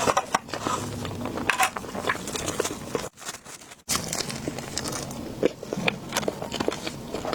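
Close-miked eating: irregular biting and chewing with small crackles. The sound drops away for under a second about three seconds in, then resumes.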